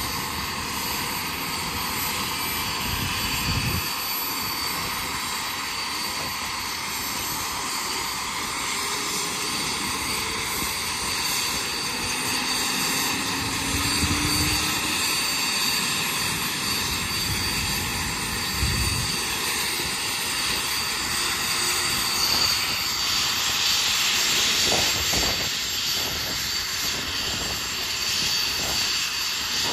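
Boeing CH-47 Chinook's twin T55 turboshaft engines running on the ground with a steady high turbine whine and rush, the tandem rotors turning. About 22 seconds in the turbine sound swells louder and brighter, and low, regular rotor beats start to come through near the end.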